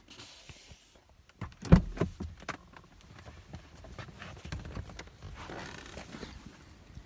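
Handling noise of someone climbing out of a car: a sharp thump about two seconds in and a few lighter knocks, then low, irregular scuffing and rustling.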